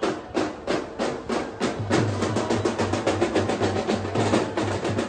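Dhol-tasha troupe drumming: a fast run of sharp, crackling strokes, with heavy low dhol beats joining in a steady rhythm about two seconds in.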